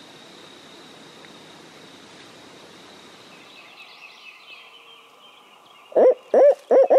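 Faint background hiss with a few small bird chirps, then about six seconds in a loud series of quick owl hoots begins, each note rising and falling in pitch, in the pattern of a barred owl's hooting. This is an owl locator hoot of the kind turkey hunters use to make a roosted gobbler gobble back.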